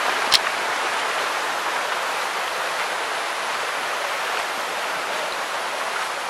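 Steady rush of flowing stream water, with one sharp click just after the start.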